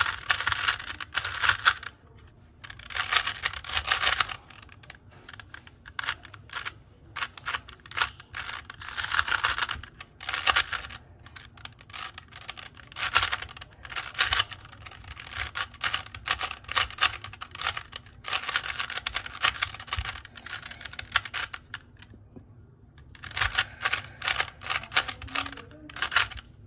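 Plastic 3x3 puzzle cube being turned by hand during a solve: fast runs of clicking and clacking as its layers turn, in bursts a few seconds long with brief pauses between.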